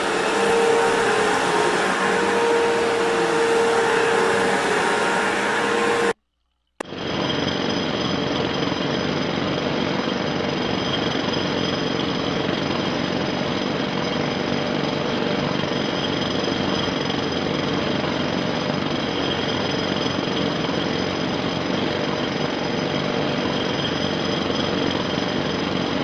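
Computer-generated tinnitus masking sound: a steady rushing noise with a few steady tones running through it. About six seconds in it cuts off for half a second, then returns as a different mix with higher steady tones.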